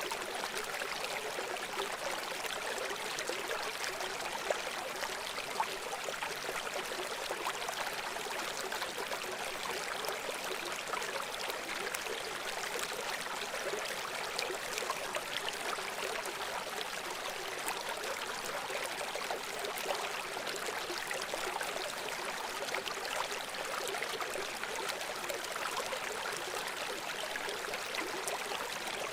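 A river flowing: a steady rush of babbling, trickling water with little low rumble.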